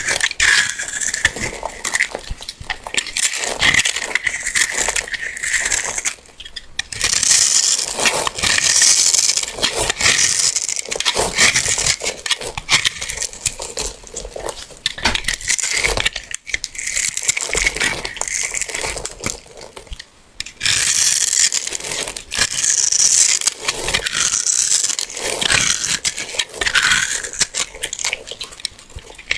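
Golden yellow soap blocks being crushed by hand: a dense run of crunching and crackling, with short breaks about six and twenty seconds in.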